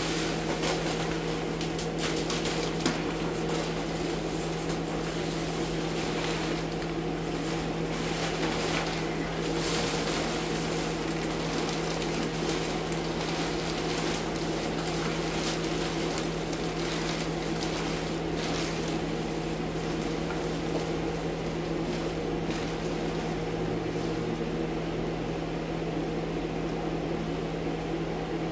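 Steady hum of an air scrubber's fan running. Over it, plastic sheeting crinkles and rustles as it is pulled and bunched, mostly in the first half.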